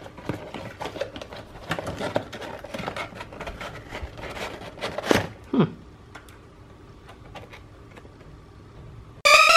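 A taped cardboard parcel being torn open by hand: paper and tape rustling and ripping, with two louder rips about five seconds in, then small handling clicks. Near the end a loud electronic tone cuts in, rising a little in pitch.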